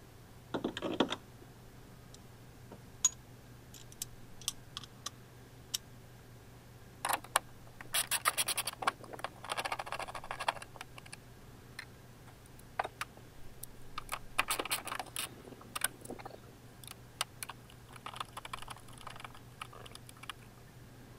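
Hands working on plastic trim, wiring and the rear light fittings inside a car's boot: scattered clicks, scrapes and short irregular bursts of rattling.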